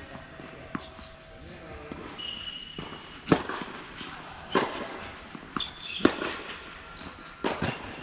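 Tennis ball struck back and forth with racquets in a rally on an indoor hard court: four sharp hits about a second and a half apart, starting about three seconds in, after a single earlier hit.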